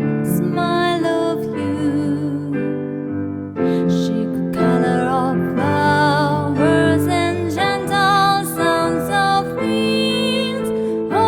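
Slow, gentle piano ballad: a woman sings a wavering, vibrato-laden melody over sustained piano chords.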